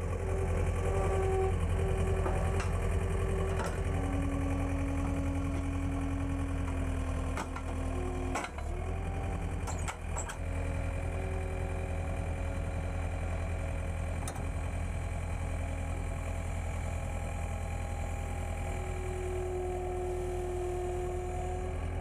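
John Deere 320 skid steer loader's diesel engine running steadily, its pitch shifting now and then as the loader moves. A few sharp clanks come about eight to ten seconds in.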